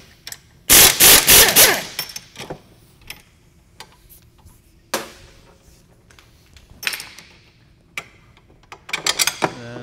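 Impact wrench hammering for about a second as it spins out the 16 mm lower mount bolt of a VW Mk4 rear shock. Scattered metallic clicks and knocks follow as the bolt and shock are worked loose.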